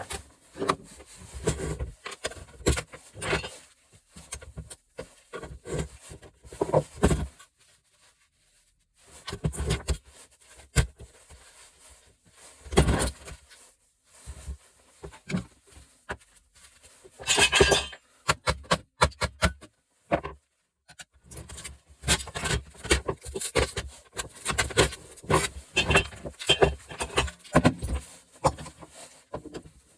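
Metal parts of a gas stove being pulled apart and handled: irregular clanks, clinks and knocks, with a louder rattle about halfway through followed by a quick run of clicks.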